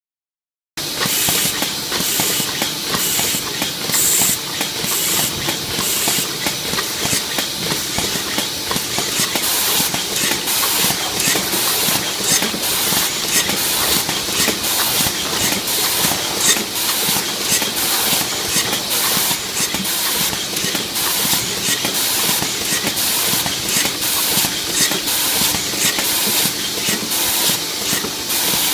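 Automated printing machine running in a robot cell, with steady pneumatic hissing and rapid, continuous clicking and clatter. It starts suddenly about a second in.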